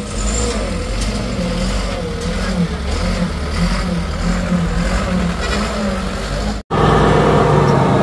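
Truck engine running steadily with a low hum. About two-thirds of the way in the sound cuts out for an instant and comes back a little louder.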